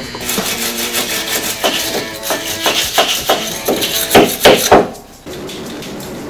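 A run of hammer blows on steel, coming faster and louder, with the loudest few just before they stop about five seconds in.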